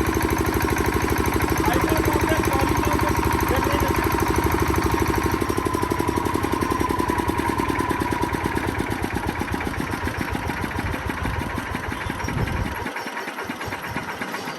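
Bajaj 5 kVA handle-start diesel generator set running, its engine firing in a fast, steady beat. The sound grows somewhat quieter over the last few seconds.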